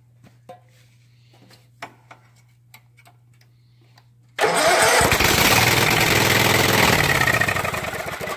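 An 18 hp Kawasaki V-twin on a riding mower catches suddenly about four seconds in and runs loudly for a few seconds, then begins to die down near the end. It fires on a shot of carb cleaner sprayed into the open intake. A few faint clicks come before it fires.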